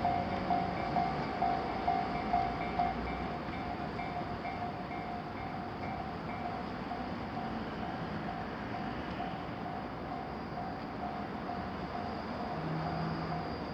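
Japanese railroad crossing warning bell ringing about twice a second, loud for the first few seconds and then fainter over a steady background rush.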